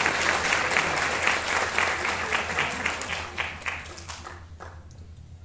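Audience applauding, the clapping dying away about four seconds in, with a few last claps.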